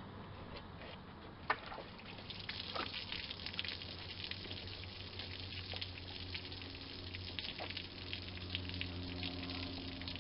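Water and chemical flush draining out of a Jeep Cherokee XJ's disconnected lower radiator hose, pouring and splashing steadily, with a sharp click about a second and a half in.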